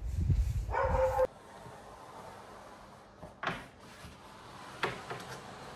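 A loud low rumble cuts off abruptly about a second in. Then two sharp door knocks or clicks, about a second and a half apart, as a door is opened in a quiet dark room.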